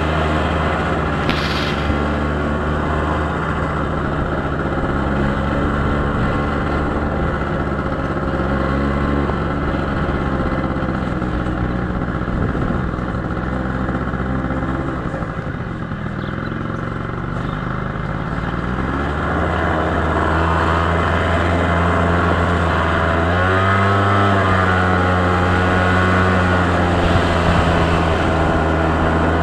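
Engine of a moving road vehicle running with road and wind noise. Its note falls away around the middle and then climbs again, with a shift in pitch about two thirds of the way through.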